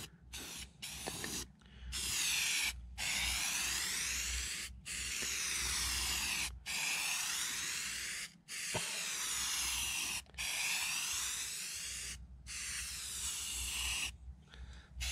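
Aerosol spray paint can hissing in a run of about seven long passes, each lasting one and a half to two seconds, with short breaks between them. The first second or so holds a few shorter squirts.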